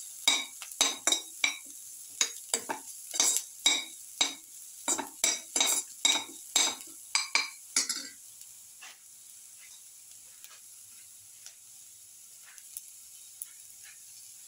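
A perforated steel skimmer-spatula stirring sliced onions sautéing in ghee, scraping and clinking against the pan about twice a second. About eight seconds in the stirring stops, leaving a faint sizzle with a few soft ticks.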